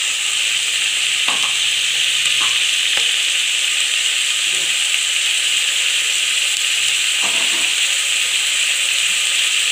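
Sliced onions and green chillies sizzling steadily in hot oil in an aluminium pressure cooker, being sautéed until golden brown, with a few faint knocks.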